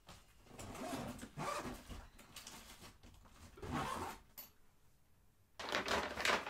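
A fabric emergency bag being handled and zipped shut, with scratchy rubbing and a zip about four seconds in. After a short pause, a plastic shopping bag starts rustling and crinkling, louder than the rest.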